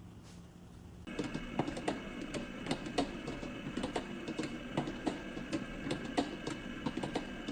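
An electric kitchen machine switches on about a second in and runs with a steady whine made of several fixed tones, overlaid by rapid, irregular clicking and rattling.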